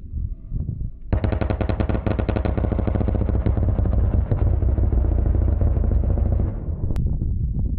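A-10 Warthog's GAU-8 Avenger 30 mm seven-barrel rotary cannon firing one long burst. It is a continuous buzzing "brrrt" that starts suddenly about a second in, holds for around five seconds, then fades. A low rumble comes before it.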